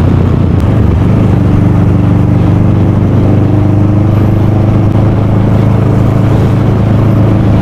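Motorcycle engine running steadily at expressway cruising speed, with wind and road noise.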